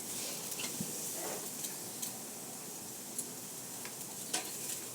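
A hand-held sparkler burning: a steady fizzing hiss with scattered sharp crackles, the loudest crackle near the end.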